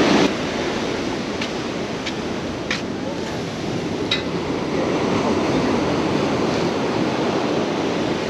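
Ocean surf washing and breaking below the pier, a steady rushing noise, with a few light clicks about one to four seconds in.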